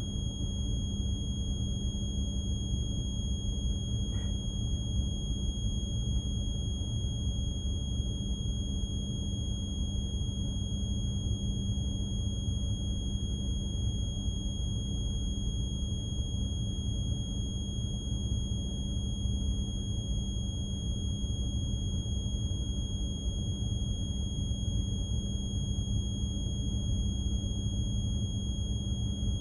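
Container ship's machinery running steadily: a deep, even drone with a constant high-pitched whine over it.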